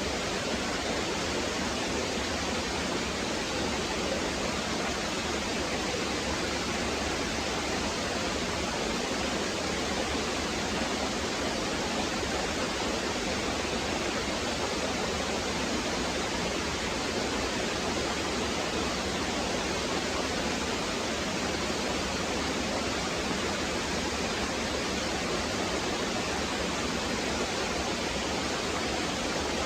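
Small waterfall splashing down a rock face, a steady even rush of water.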